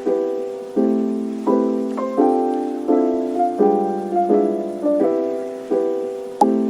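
Soft background piano music: sustained chords struck about every three-quarters of a second, each fading before the next.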